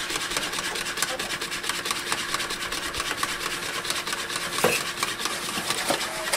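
A wire whisk beating eggs and milk in a plastic bowl: a rapid, continuous run of scraping strokes against the bowl, with a single knock near the end.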